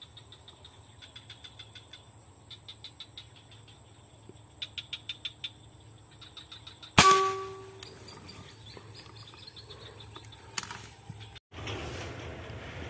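A single air rifle shot fired through a scope about seven seconds in: a sharp crack with a brief metallic ring. Before it, insects chirp in short rhythmic trills over a steady high tone.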